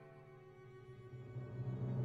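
Background orchestral music with bowed strings, a low note swelling louder toward the end.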